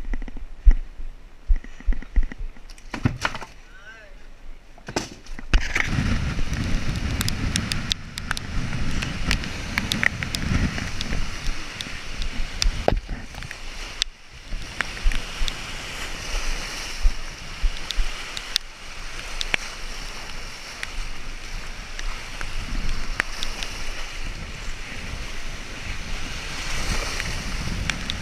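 A few knocks and clicks, then from about five seconds in, lake waves splashing and surging over shoreline rocks, with wind rumbling on the microphone.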